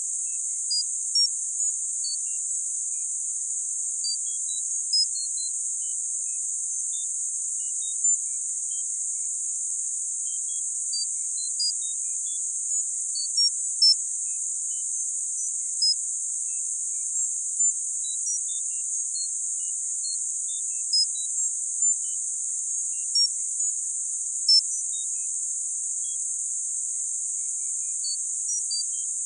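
Tinnitus-masking therapy sound: a steady, high-pitched hiss confined to a narrow band, with short high beeps sprinkled over it at irregular times and scattered pitches.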